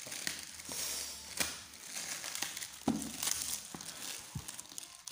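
Black plastic mailer bag crinkling and tearing as it is cut open with a box cutter and pulled apart by hand, with many short crackles.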